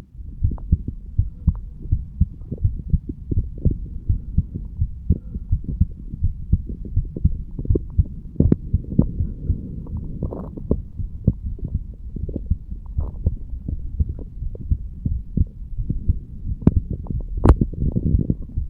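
A man's heartbeat recorded at the chest over the bicuspid (mitral) valve area: a steady run of low, repeated thumps, with a few sharp clicks among them.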